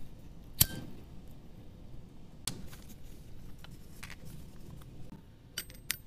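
Small handling sounds of a tealight and wax warmer being set up: a sharp click about half a second in and another a couple of seconds later. Near the end come three or four quick, light, ringing clinks as sealing wax beads drop into a metal melting spoon.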